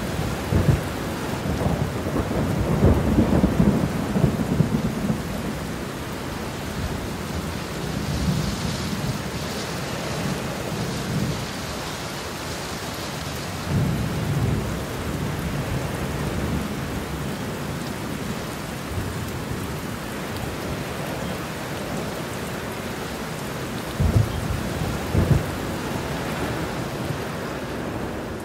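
Heavy rain falling steadily with rolling thunder: low rumbles swell in the first few seconds and again around the middle, and two sharper thunder claps come close together near the end.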